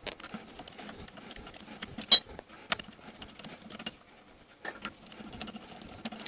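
Light metal clicks and clinks from a socket wrench on wheel lug nuts and from the loose nuts being handled as a car wheel's nuts are spun off, with a few sharper clicks among faint rustling.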